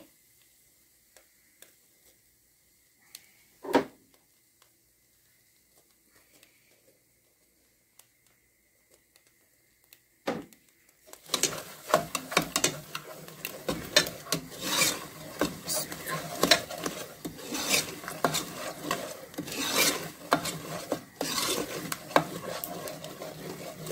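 A steel ladle scraping and knocking against a metal pot in quick strokes, stirring turmeric and chilli powder into the roasted gram-flour base of Sindhi kadhi; the stirring starts about eleven seconds in. Before that, near silence with a faint steady high tone and two single knocks.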